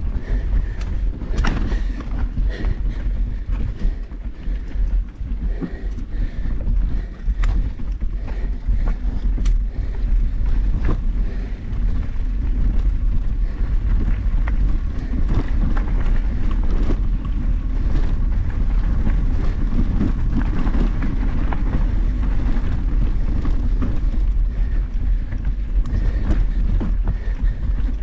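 Mountain bike riding over rocky singletrack: a steady rumble of wind on the microphone and tyres on the trail, with frequent knocks and rattles as the bike hits rocks.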